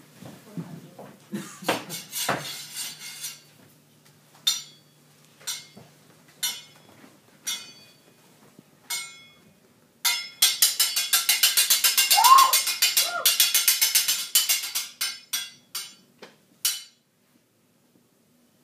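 Sharp knocks and clatter: a short burst, then single knocks about once a second, then several seconds of rapid, evenly spaced banging. A voice gives two short rising cries partway through the banging, and a few last single knocks follow.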